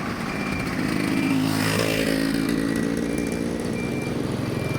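Machinery running with a low hum under a repeating short, high electronic warning beep, a little faster than once a second. A brief burst of hissing noise comes about a second and a half in.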